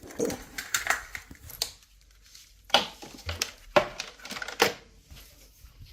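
Handling noise from cords and plugs being pulled and moved: a busy patch of rustling clatter, then after a short lull three sharp separate knocks.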